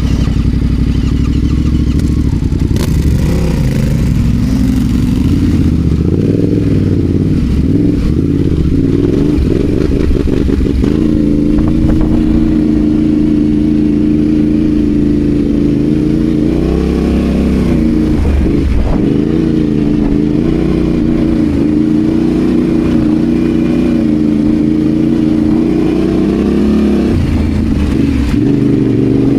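Adventure motorcycle engine running under varying throttle while riding off-road, its pitch rising and falling as the rider works the throttle, with a brief dip about two-thirds of the way through.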